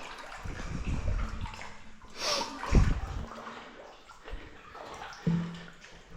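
Water sloshing and splashing around someone wading through the flooded mine tunnel, with a stronger splash about two and a half seconds in.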